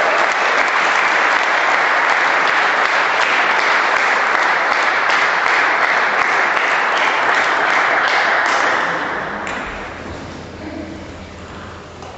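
Audience applauding, clapping steadily and then dying away about nine seconds in.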